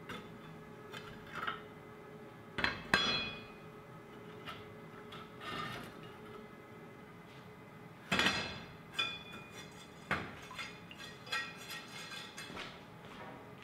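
Cut pieces of 3/8-inch metal plate clanking and clinking against each other and the plasma table's metal slats as they are lifted out of the cut strip. Several sharp metallic knocks that ring briefly, the loudest about three seconds in and about eight seconds in, with lighter clinks after that.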